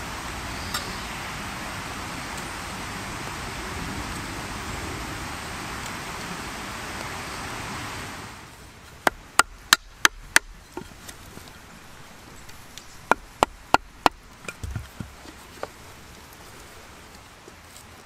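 A steady hiss for about eight seconds, then a fixed-blade knife cutting into fresh wood: crisp snapping strokes, a run of about five at roughly three a second, a short pause, about four more, then a few softer cuts.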